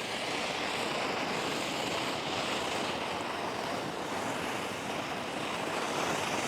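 Happy Family Red Monster firework fountain burning with a steady hiss of spraying sparks.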